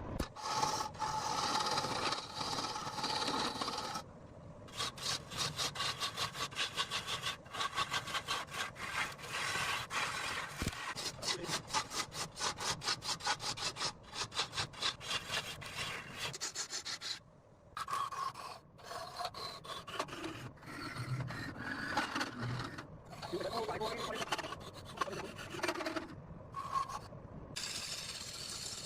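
A hand tool rasps and scrapes on rosewood in quick, repeated strokes, about three a second. The strokes stop briefly partway through, then pick up again less evenly.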